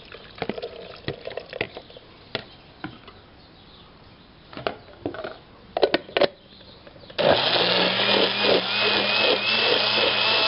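Light knocks and clatter as boiled tomatoes and guajillo chiles are tipped from a bowl into a blender jar and the lid is set on. About seven seconds in, a countertop blender starts and runs steadily with a high whine, grinding the tomatoes and chiles in their cooking water.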